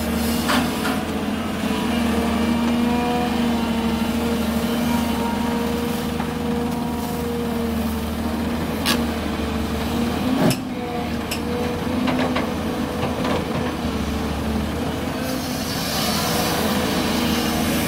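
Volvo excavator at work, its diesel engine running steadily with a held tone. A few sharp knocks come about halfway through, and a hiss comes near the end.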